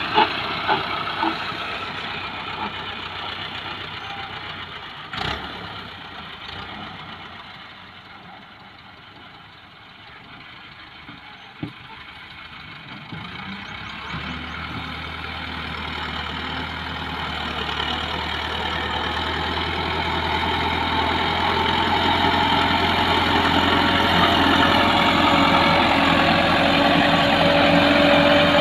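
Massey Ferguson 375 tractor's diesel engine running steadily. It fades as the tractor works farther off, then grows steadily louder as it comes close again, with the load rising near the end as it pushes soil into the trolley. There are two brief sharp knocks, about five and twelve seconds in.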